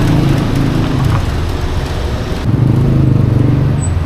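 Street traffic close by: a motor vehicle engine running over steady road noise, growing louder about two and a half seconds in.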